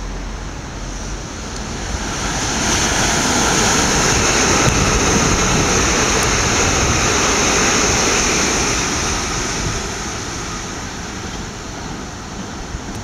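Southern Class 377 Electrostar electric train running through the station at speed without stopping. Its rushing wheel and air noise swells about two seconds in, holds for several seconds, and fades away near the end.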